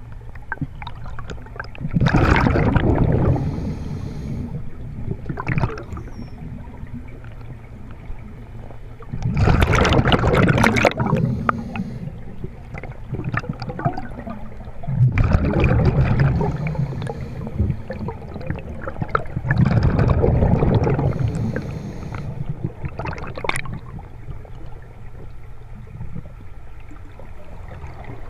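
A scuba diver breathing underwater through a regulator. Four loud gurgling rushes of exhaled bubbles come a few seconds apart, with quieter inhaling hisses between them, over a steady low rumble of the water.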